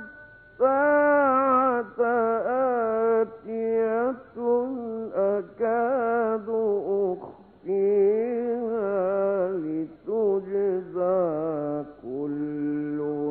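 A male Quran reciter chanting in a slow, melodic, heavily ornamented style. The long sung phrases are broken by short pauses for breath.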